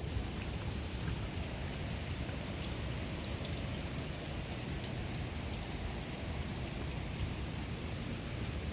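Steady rushing of water falling at Harajiri Falls, a wide curtain waterfall: an even, unbroken roar with a heavy low rumble.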